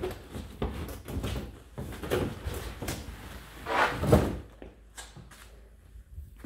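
Footsteps, scuffs and light knocks of a person squeezing past clutter, with louder bumps about two seconds in and again around four seconds in.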